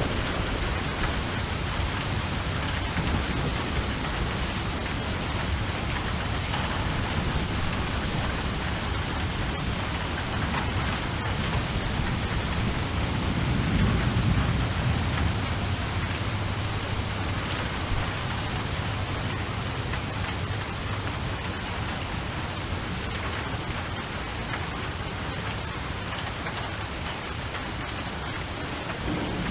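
Steady rain falling, an even hiss. A low rumble swells up about halfway through and fades again.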